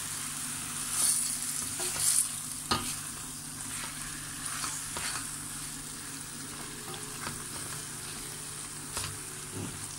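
Chicken pieces with tomato, onion and pepper sizzling as they sear in a stainless steel pot, stirred and scraped with a spatula. A few sharp knocks of the spatula against the pot stand out over the steady frying hiss.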